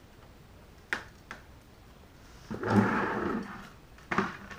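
Handling noise from the speedometer's wiring and connectors: a sharp click about a second in, a rustling scrape lasting about a second near the middle, and two more clicks near the end.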